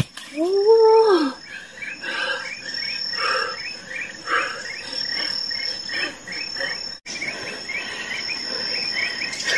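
Forest insects: a steady high-pitched buzz with chirps repeating a few times a second, and a short rising-and-falling call about half a second in.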